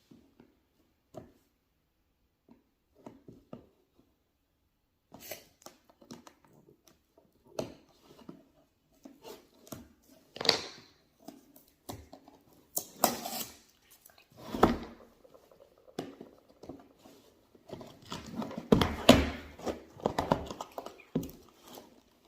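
Irregular handling noises as toys and packaging are searched through and opened: short rustles, taps and light knocks, with a near-silent pause about four seconds in and busier handling near the end.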